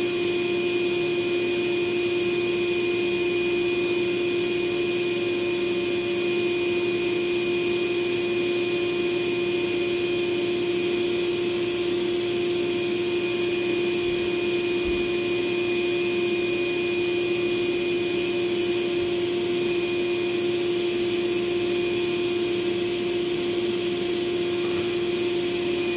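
Vacuum cleaner running steadily: a constant motor hum with a higher whine over an even rush of air, unchanged throughout.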